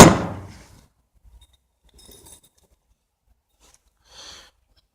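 A sharp metal clank of a tire tool that rings away in under a second, then faint light metal clinks about two seconds in.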